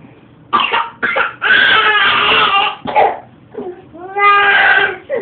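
Toddler crying in a tantrum. After a brief quiet there are two short sobs, then a long wail, another short cry, and a second long wail near the end.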